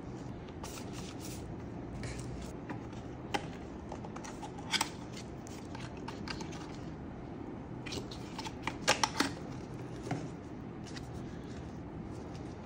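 Scattered clicks and rustles of packaging and small parts being handled during an unboxing, over a steady low hum. The sharpest clicks fall a few seconds in and in a quick cluster of three or four about two-thirds of the way through.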